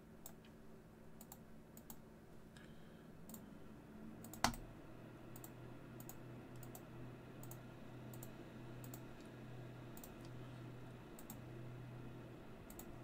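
Faint, scattered computer mouse and keyboard clicks, with one sharper knock about four and a half seconds in. A low steady hum sets in at the same moment.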